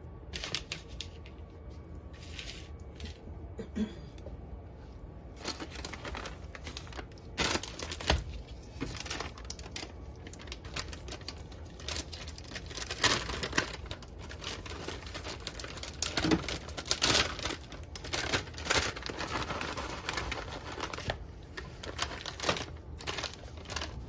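Plastic packaging of shredded cheese rustling and crinkling, with irregular clicks and taps, as toppings go onto a homemade pizza.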